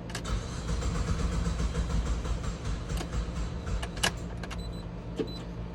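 2013 GMC Acadia's 3.6-litre V6 being cranked by its starter, with a sharp click about four seconds in as the cranking drops away: the weak battery is giving out.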